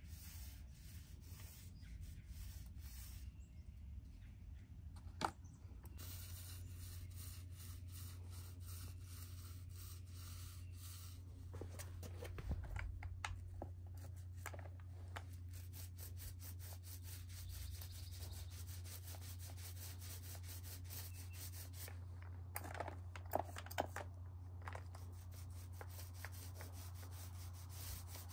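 Small paint roller rubbing over rough cinder block in quick repeated strokes as it applies paint, faint against a steady low hum. A single sharp knock comes about five seconds in, and a couple of sharp clicks near the end.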